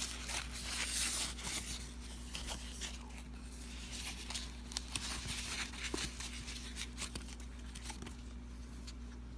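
Thin foam packing wrap crinkling and tearing as it is pulled off a newly unboxed camera, densest in the first couple of seconds, then scattered light rustles and clicks of handling.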